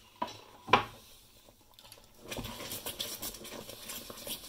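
A wooden spoon stirring chunks of cheese into a thick white sauce in a stainless-steel saucepan, scraping around the pan. A couple of sharp knocks come in the first second, and the steady stirring starts about two seconds in.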